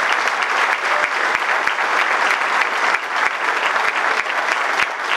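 Crowd applauding: many hands clapping steadily without a break.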